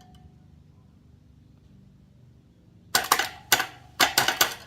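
Electrical sparking as the scooter battery's wires are touched to the motor leads: sharp crackling snaps in three quick clusters, starting about three seconds in.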